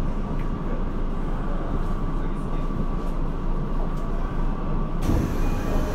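Tokyo Metro 02 series subway train standing at the platform, its onboard equipment running with a steady hum and a thin, high steady whine. A hiss joins about five seconds in.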